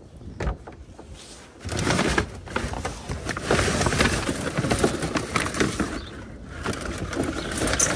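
Shopping bags rustling and crinkling as they are lifted and shifted in a dumpster, with light knocks of handled items; the rustling starts about two seconds in and carries on.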